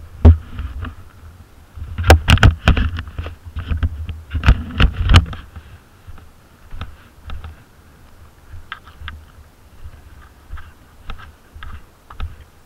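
ATV on the move: a string of irregular knocks and rattles over a low rumble, heaviest between about two and five seconds in, then sparser and fainter.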